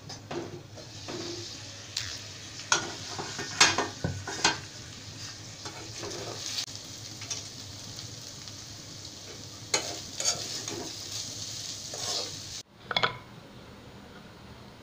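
Diced potatoes and peanuts sizzling as they fry in oil in a karahi, with a spatula scraping and knocking against the pan now and then, sometimes several strokes in quick succession. The sizzling cuts off abruptly near the end.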